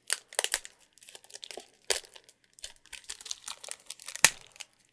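Cellophane shrink-wrap on a laserdisc box set crinkling as fingers pick at it and at the tape holding it, in irregular crackles. There is a louder crackle about two seconds in and the loudest one just after four seconds.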